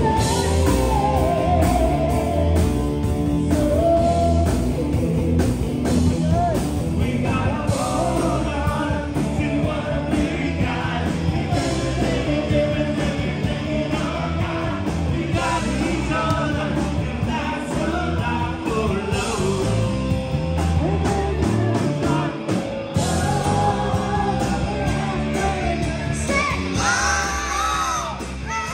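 Live rock cover band playing: a singer over electric guitars and drums.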